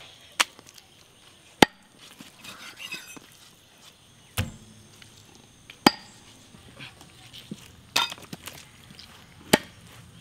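Cleaver chopping beef on a wooden tree-stump block: about six sharp chops, one to two seconds apart.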